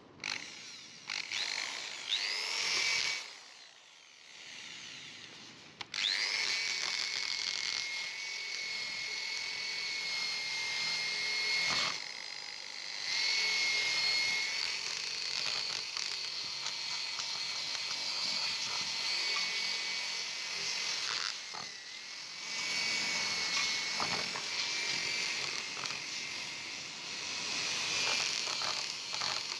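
Electric drill spinning an abrasive flap wheel against the steel of an old adjustable wrench, sanding off rust. A short spin-up about two seconds in, then from about six seconds a steady high whine with a scratchy grinding noise, dipping briefly twice.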